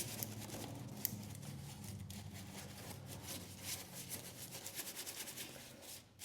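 Hand scrubbing on the mower's body, a rapid run of quick scratchy rubbing strokes over a faint low hum, dying down near the end.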